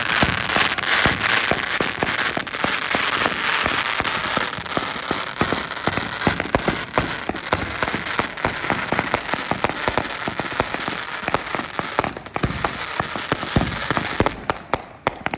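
Fireworks and firecrackers going off in rapid, overlapping bursts: continuous cracking and popping with sharper bangs mixed in, easing briefly twice.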